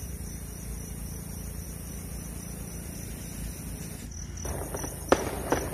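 Open night air with a steady low rumble. A cricket chirps in a fast, even pulse from about four seconds in, and a sharp pop, a distant firework, comes a little after five seconds.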